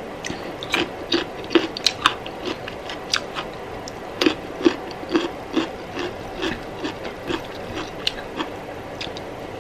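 Close-up chewing of a mouthful of rice, curry and vegetables: a steady run of short moist crunches, about two to three a second.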